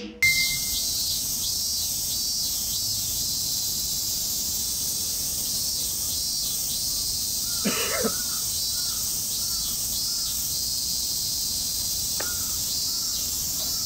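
Steady chorus of cicadas: a shrill high buzz that pulses in places. A brief louder sound cuts in about eight seconds in.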